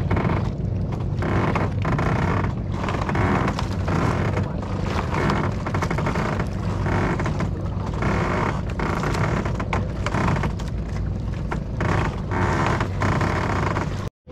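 A boat engine running steadily, a constant low drone under a rushing wash of wind and water.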